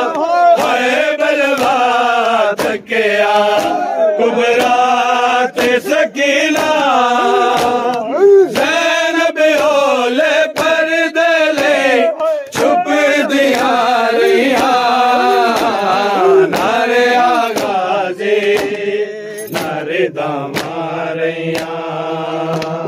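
Men chanting a noha, a Shia lament, together in a steady sung melody, with sharp slaps at irregular moments from hands striking chests in matam.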